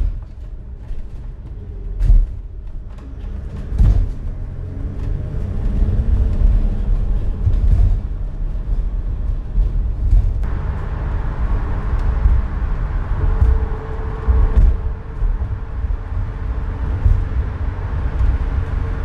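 Road and drivetrain noise inside the empty cargo area of a moving Mercedes Sprinter van. The floor is freshly laid with aluminium joists, foam board, mass loaded vinyl and plywood. A deep steady rumble is broken by knocks and rattles, and about halfway in a higher road roar joins it at highway speed.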